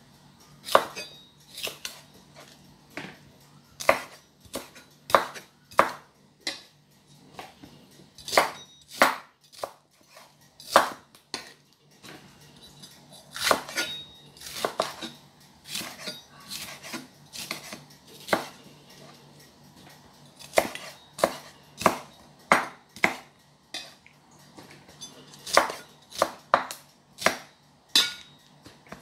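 Kitchen knife chopping red bell pepper on a wooden cutting board: sharp, irregular knocks of the blade striking the board, often less than a second apart, with short pauses between runs of cuts.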